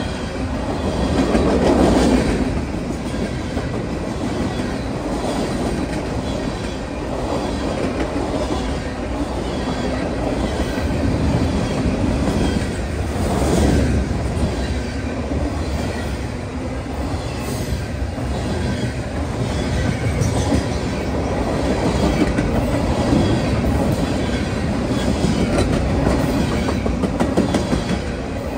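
Freight train's covered hopper cars and a tank car rolling past close by: a steady rumble of steel wheels on the rails with clicking over the rail joints, swelling louder about two seconds in and again about halfway through.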